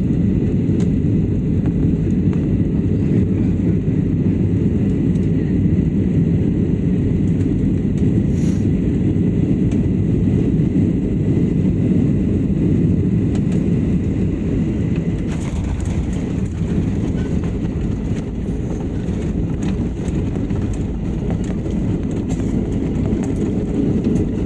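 Steady, loud low rumble of an Air India Express airliner landing, heard from inside the cabin as engines and wheels rumble down the runway. It eases slightly about two-thirds of the way through.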